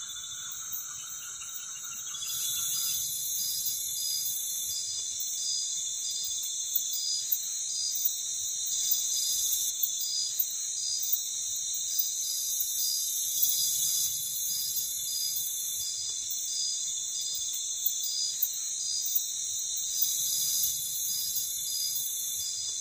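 Night-time chorus of rainforest crickets and other insects: a dense, high-pitched trilling with one steadily pulsing call through it, and a campfire popping now and then.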